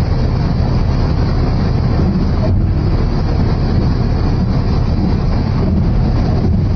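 Steady low rumble of a semi-truck running as it slowly moves a refrigerated trailer.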